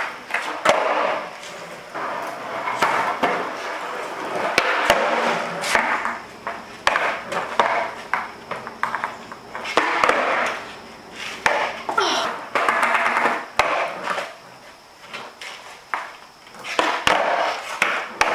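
Skateboard on concrete during kickflip attempts: the wheels rolling, with repeated sharp clacks as the board is popped, flips and lands.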